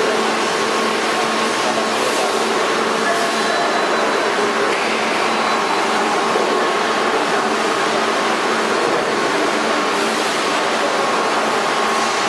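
Injection moulding machine running with its crate mould clamped shut: a constant, even machine noise with a steady low hum under it.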